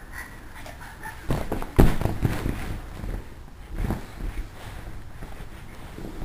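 A toddler moving about: a few dull thumps and soft rustling, the loudest thump a little under two seconds in.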